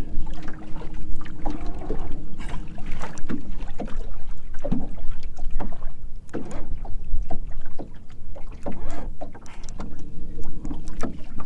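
Small boat on open water: irregular slaps and knocks of water against the hull over a low wind rumble. A steady hum stops about three seconds in and comes back near the end.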